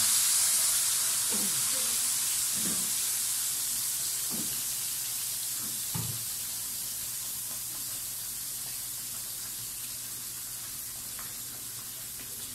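Blended chili paste (sambal) frying in hot oil, a steady sizzling hiss that fades gradually as the paste cooks down. It is being cooked until the oil separates out.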